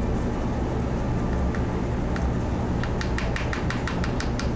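Steady low hum of room noise, with a quick run of light clicks about three seconds in, as a paintbrush works thick, goopy paint on a palette.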